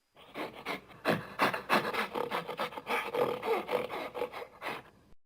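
Gorilla vocalizing: a rapid, uneven run of short noisy grunts, with a few brief pitched calls about three seconds in. It starts and stops abruptly.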